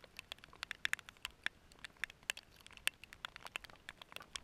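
Raindrops hitting the camera: irregular sharp ticks, several a second, some louder than others.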